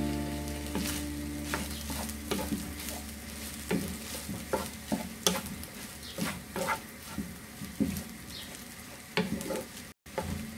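Tuna fried rice sizzling in a frying pan while a wooden spatula stirs and turns it, with a short scrape against the pan at each stroke, roughly one every half second to a second.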